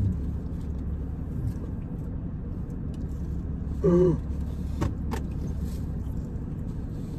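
Steady low hum of a car idling, heard from inside the cabin. A short voiced sound comes about four seconds in, and two sharp clicks about a second later.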